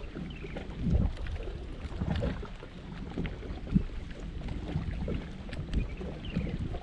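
Wind buffeting the microphone on a boat on open water, an irregular low rumble that swells in gusts, with water lapping against the hull and a few faint clicks.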